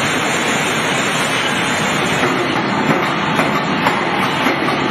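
Steady factory-floor machinery noise, with a few light metallic knocks in the second half.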